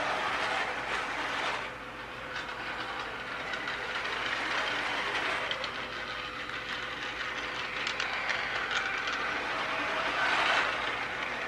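Small battery-powered toy maintenance-of-way vehicles running on a circle of Menards O-gauge track: a steady motor whir and wheel rumble with a few faint clicks.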